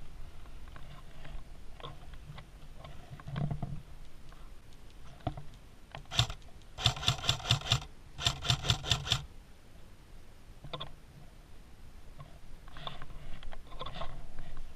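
Airsoft gun firing: one shot about six seconds in, then two rapid full-auto bursts of about a second each, several shots a second. Around them, the rustle and scrape of clothing and gear as the player moves.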